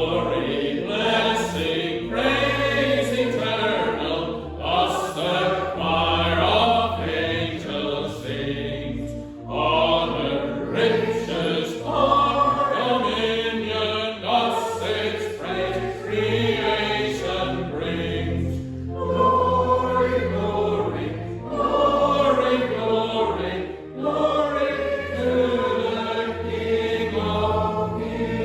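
A church congregation singing a hymn together with instrumental accompaniment, in phrases separated by brief breaths.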